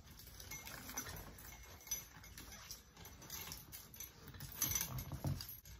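Faint handling noise: scattered soft clicks, taps and rustles, a little busier about two seconds in and again near the end.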